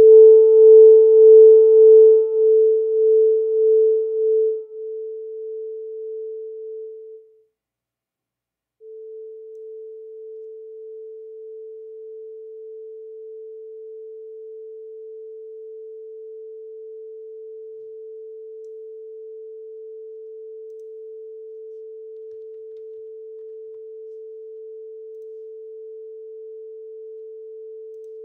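Steady 440 Hz sine test tone from an online tone generator played on a computer, used as a calibration tone to bring a sound level meter to about 70 dB. It starts very loud and is turned down in steps over the first several seconds, cuts out for about a second and a half, then comes back quieter and holds steady.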